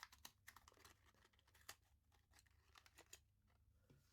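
Faint crinkling and clicking of a Hot Wheels blister pack's plastic bubble being pried open by fingers: scattered small clicks for about three seconds, then almost nothing.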